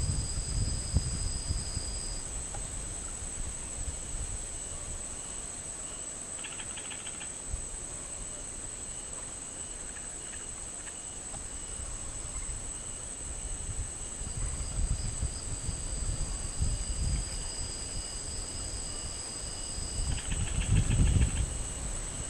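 Night chorus of insects such as crickets: one steady high-pitched trill throughout, a second, lower trill that stops early and returns in the second half, and two short bursts of rapid chirping. Under it runs a low rumble that swells near the end.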